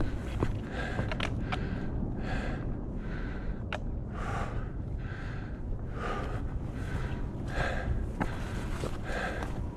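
A hiker breathing hard and fast while climbing, a heavy breath about every second. Footsteps and sharp clicks of trekking poles striking rock come through now and then.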